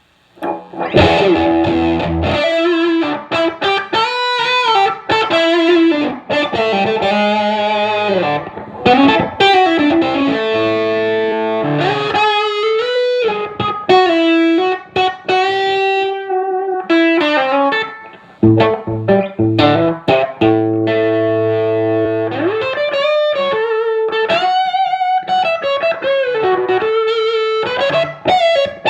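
Electric guitar, a humbucker-equipped Gibson Les Paul, played through a hybrid Fuzz Face / Tone Bender MK1.5 fuzz pedal into a 1969 Fender Bassman amp. The fuzz is blended halfway between its germanium Fuzz Face and Tone Bender circuits. It plays distorted riffs, with held notes and chords and a couple of short breaks.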